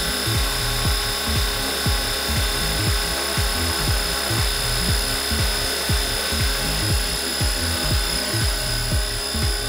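Radio-controlled scale Huey helicopter hovering, its motor and rotors giving a steady whine, with background music with a steady beat.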